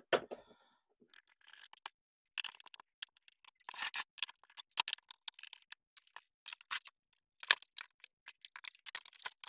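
A portable speaker being taken apart by hand: an irregular series of small clicks and scrapes as its casing is worked open.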